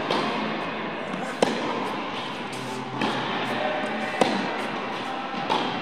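Background music, with the sharp pops of a tennis ball being hit on court: four of them, unevenly spaced, near the start, about a second and a half in, a little after four seconds, and near the end.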